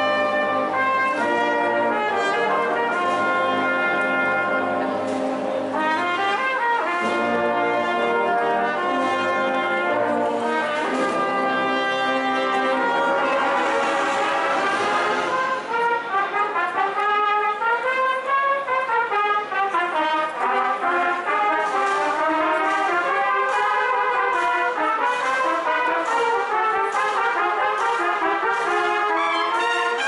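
A marching brass band playing a processional march live. It holds long chords at first, then moves into a flowing melody about halfway through.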